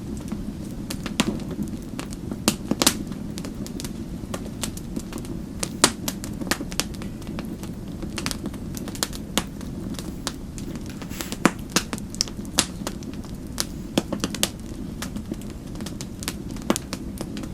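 Wood fire crackling in a fireplace: frequent sharp, irregular pops and snaps over a steady low rush of flames.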